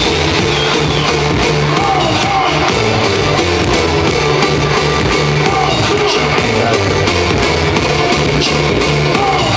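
Loud music with a steady beat, played over a party sound system.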